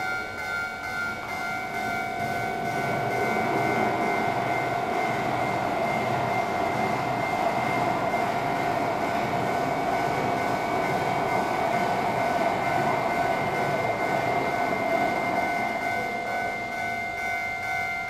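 Train running sound effect accompanying N-gauge model trains: a steady whine over a rushing rumble that builds up over the first few seconds and eases off near the end.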